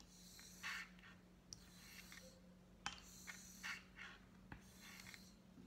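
Straight razor honed on a wet sharpening stone: a few faint swishing strokes of the blade across the stone, with light clicks as the razor is turned over on its tape-covered spine.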